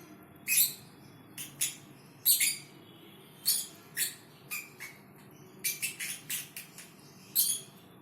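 Fischer's lovebird snoring: short, hissy rasps at irregular intervals, about a dozen in all, with a quick run of them about six seconds in.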